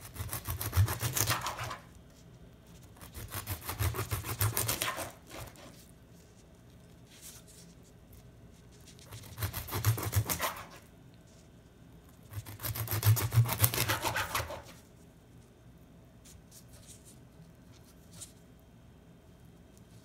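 A chef's knife sawing through a raw American shad fillet and onto a plastic cutting board, cutting thin chip-sized slices. It comes in four bursts of quick back-and-forth strokes, each a second or two long, with quiet between them.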